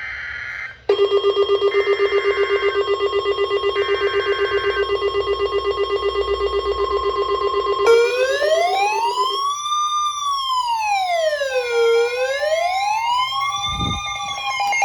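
Emergency Alert System alert sounding: short buzzy data bursts of the alert header under a loud tone pulsing about eight times a second. About eight seconds in, an electronic siren starts wailing slowly up and down over a steady tone.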